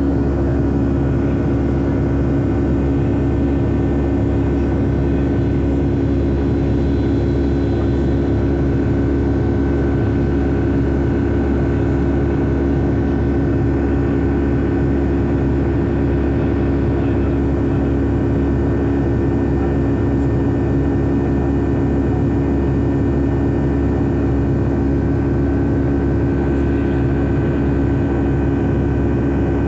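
Boeing 757-300 jet engines and airflow, heard from the passenger cabin as a loud, steady rush with a constant low hum.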